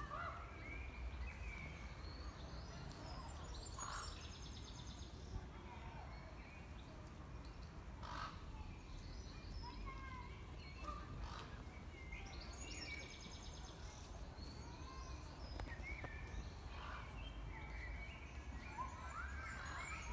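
Several songbirds calling and singing: scattered short chirps and sliding notes, with a couple of quick trills, over a steady low background rumble.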